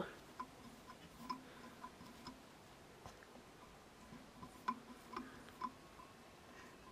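Faint, irregular light clicks and ticks from fingers twisting a pinch of hare's fur dubbing onto waxed tying thread.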